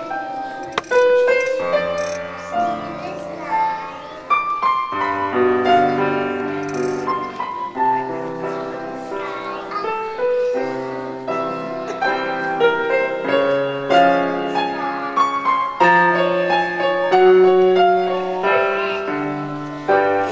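Piano music playing, a continuous run of melody notes over chords.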